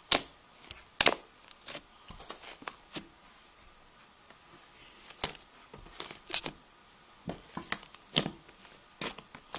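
Fluffy pink slime made with shaving cream being squeezed and poked by fingers for ASMR, giving irregular sharp pops and crackles, with a quieter stretch in the middle.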